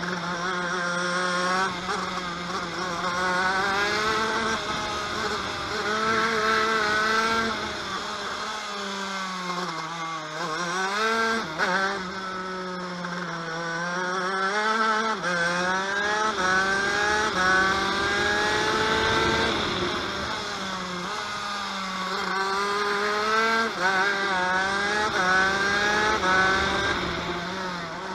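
TM KV92 125cc two-stroke shifter kart engine at full racing speed, revving up through the gears again and again. The pitch climbs, then drops sharply at each shift or lift, with a deeper dip near the middle as it slows for a corner.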